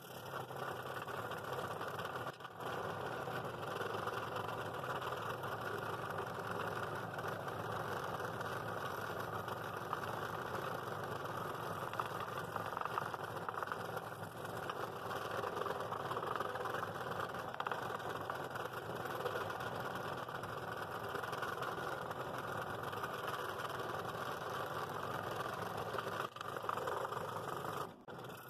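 Scroll saw running, its fresh number 7 non-reverse-tooth blade cutting steadily through a thick glued-up wood blank for a compound cut, a heavy cut that warms the blade. The sound briefly drops out near the end.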